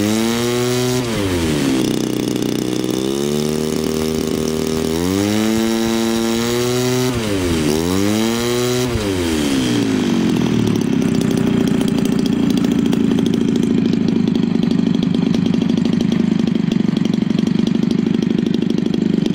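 Homelite 30cc single-cylinder two-stroke engine, converted for a radio-control model plane, revved up and down several times, then running steadily at a lower speed.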